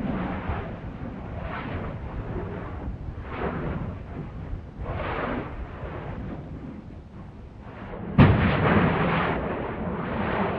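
Stromboli volcano's crater vents rumbling in swelling puffs every second or two, then a sudden explosive blast about eight seconds in, followed by a loud, noisy rush that fades slowly: a Strombolian eruption.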